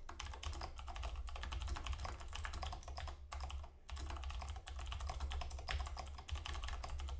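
Typing on a computer keyboard: a fast run of key clicks, with a brief pause about three seconds in.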